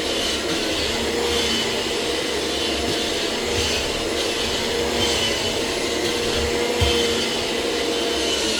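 Kirby Generation 6 upright vacuum cleaner running steadily while being pushed back and forth, its motor note wavering slightly with each stroke. A short bump sounds about seven seconds in.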